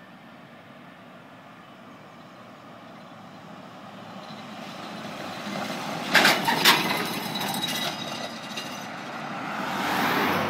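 A GMC pickup towing a flatbed car trailer with a Mustang on it approaches and drives past, its engine and tyre noise growing louder. About six seconds in there are two sharp clatters from the rig as it goes by. Near the end a second car swells past close by.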